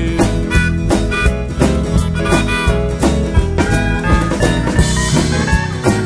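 Instrumental passage of a band song: pitched lead and backing instruments over a steady drum beat, with no singing.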